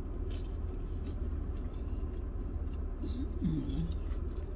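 Steady low rumble of a car's cabin while parked, with faint clicks of chewing and a brief low hummed sound a little past three seconds in.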